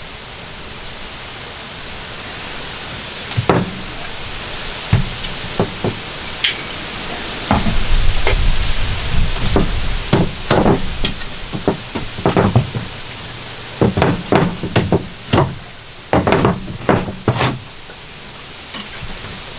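Irregular knocks and thumps of hands and wooden framing being handled and set against a van floor, most frequent in the second half, over a steady hiss.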